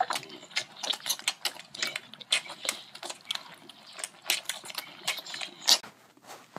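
Lion cubs sucking on milk bottles: a rapid, irregular run of clicks and smacks.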